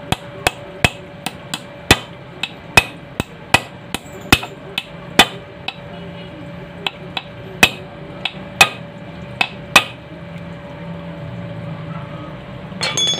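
Hammer blows on a motorcycle camshaft part clamped in a steel bench vise: about twenty sharp metal-on-metal strikes at an uneven pace, knocking loose a part that is hard to remove. The blows stop about ten seconds in, and a brief metallic clatter follows near the end.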